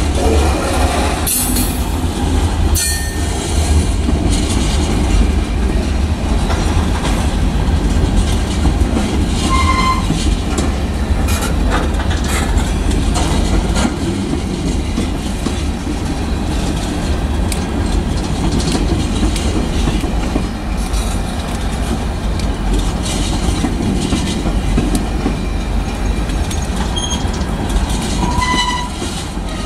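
Tank cars of a freight train rolling past close by: a steady heavy rumble of wheels on rail with clickety-clack as the wheels cross rail joints. A few brief high wheel squeals come about ten seconds in and again near the end.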